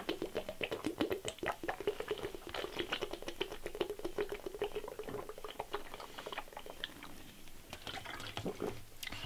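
A man gulping from a 2-litre plastic beer bottle tipped up to his mouth: a quick run of glugs and gulps of liquid for most of the time, thinning out near the end.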